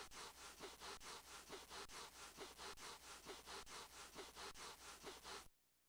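Cartoon sound effect of a small dog's paws scuffing rapidly on carpet, a fast run of scratchy rubbing strokes, about five a second, that builds up a static charge. It stops abruptly near the end.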